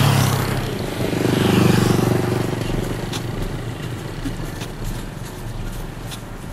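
Small motorcycle passing close by, its engine loud for the first two seconds and then fading away, with a few faint sharp knocks later on.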